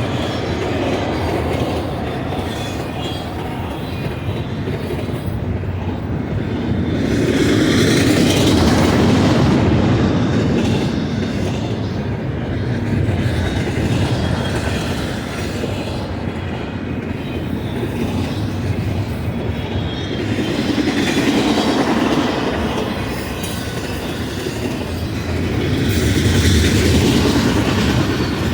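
Intermodal freight train cars rolling past at speed, a continuous rumble of steel wheels on rail with clickety-clack over the joints. The noise swells louder and fades every several seconds as cars go by.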